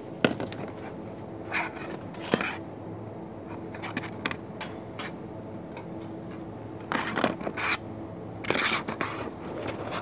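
Dinner plates clinking and scraping against each other as they are lifted from a stack and set back: a few sharp clinks in the first few seconds, then two longer clattering scrapes in the second half. A steady low hum runs underneath.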